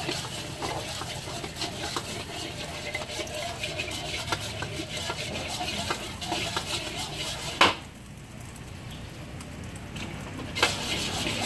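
Metal spatula scraping and tapping rapidly against a steel wok as an egg is scrambled in hot oil. A loud clang of the spatula on the wok comes about two-thirds of the way through, the scraping then stops for a few seconds, and another knock follows near the end.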